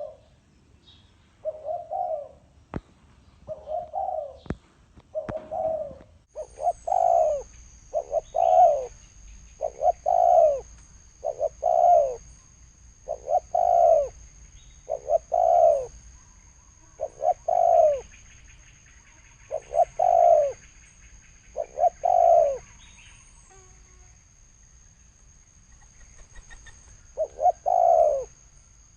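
Spotted dove cooing its deep 'thổ sấm' call, repeating low coos in steady phrases, with a pause of a few seconds near the end before it starts again. A faint steady high-pitched whine sits under the coos from about six seconds in.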